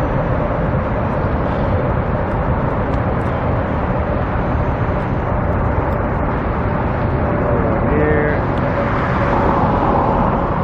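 Steady road traffic noise with a faint hum; a brief pitched sound about eight seconds in, and the noise swells near the end as a vehicle passes.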